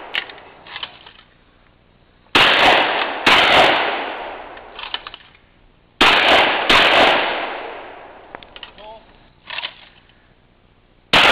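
Shotgun shots fired in pairs, each followed by a long echoing decay. Two shots come about a second apart a couple of seconds in, two more less than a second apart about six seconds in, and another right at the end, with a few light clicks between the pairs.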